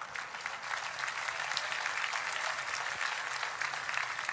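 Studio audience applauding a punchline, a dense patter of many clapping hands that builds over the first second and then holds steady.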